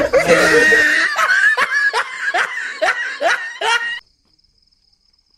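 A man laughing loudly in a run of about seven short 'ha' bursts, each falling in pitch, that cuts off suddenly about four seconds in. Faint crickets chirp steadily after it.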